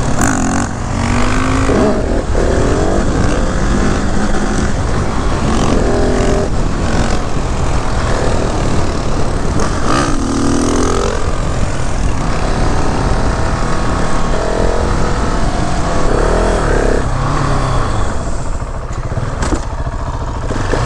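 KTM 690 SMC R's single-cylinder engine pulling hard under the rider, its pitch climbing in several repeated rising sweeps as it accelerates through the gears.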